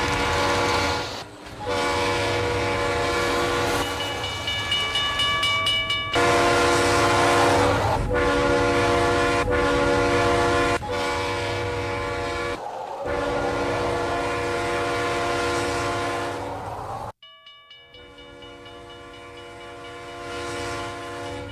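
Train horn blown in long held blasts, one after another with only brief breaks, over a low engine rumble. A little after halfway to the end the horn drops much quieter and keeps sounding.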